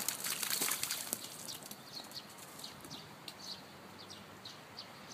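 Faint, short, high chirps repeating irregularly, about three a second, like small birds calling, with a brief rustle in the first second.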